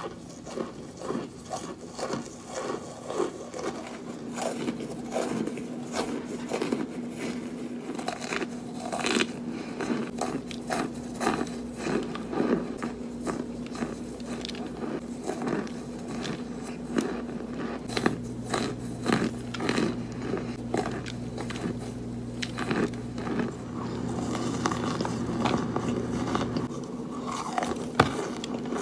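Close-up biting and crunching of dry, white, powdery chunks: many crisp crunches in irregular succession, over a faint steady hum.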